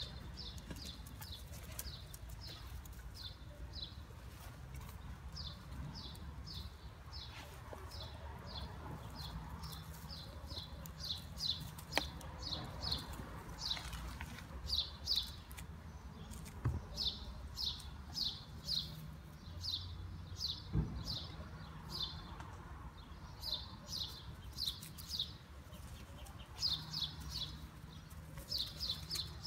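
A small bird chirping over and over: short, high chirps, several a second, in runs with short breaks, over a steady low background rumble.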